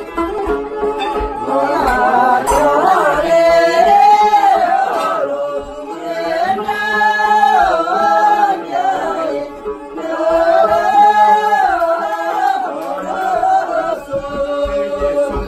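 Voices singing a Tibetan circle-dance song together in three long phrases, with dranyen (Tibetan lutes) strummed along and low thuds on a steady beat.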